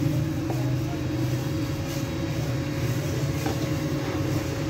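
A steady low hum, like a motor or electrical appliance running.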